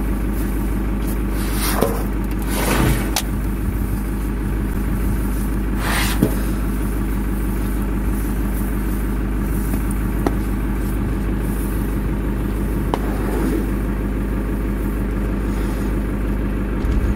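Safari jeep engine idling steadily, with a few brief scrapes and knocks on top.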